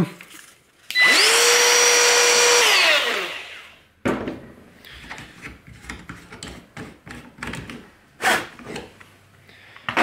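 Ryobi cordless trim router switched on, running at a steady high pitch for about two seconds, then switched off and winding down. It is followed by light clicks and knocks as the plastic hinge jig is handled.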